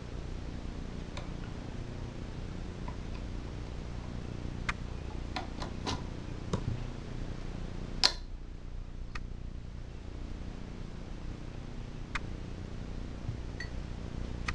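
A few scattered light metal clicks and taps from a valve spring compressor and valve parts being handled on a Tecumseh small-engine block, the sharpest about eight seconds in, over a steady low hum.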